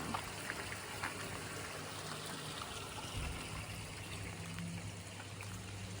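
Water trickling and splashing steadily from a decorative garden fountain.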